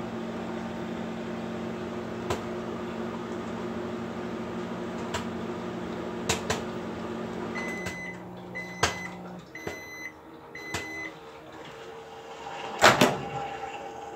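GE JES2051SN4SS microwave running with a steady hum while a bag of microwave popcorn gives a few scattered pops, the last of the popping. About halfway through, the oven shuts off and sounds four short end-of-cycle beeps about a second apart. Near the end the door latch clicks open loudly.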